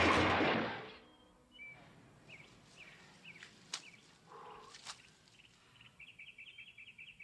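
Loud music fading out about a second in, then faint birds chirping, with short gliding calls and a quick run of twittering near the end.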